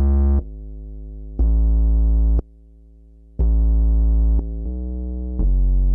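Synth bass playing a run of held notes, about one per second, stepping between loud notes and quieter ones, one of them much softer. It passes through a compressor set to a 1:1 ratio, so no compression is applied and the level differences stay as they are.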